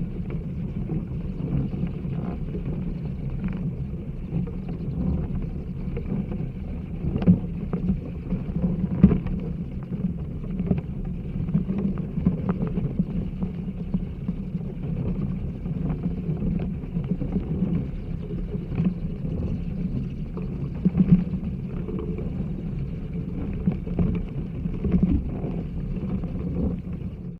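Vibration recording of a flying-fox colony in trees: a steady low rumble with scattered sharp knocks and taps, a few of them louder.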